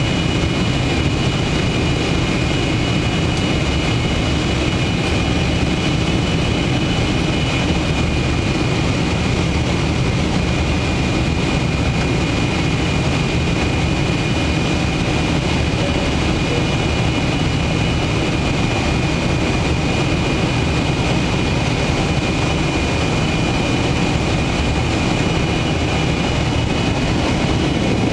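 Steady cabin noise of a Boeing 747-400 jumbo jet in flight, heard from a window seat: the jet engines and rushing airflow as a deep, even noise, with a thin steady high whine over it.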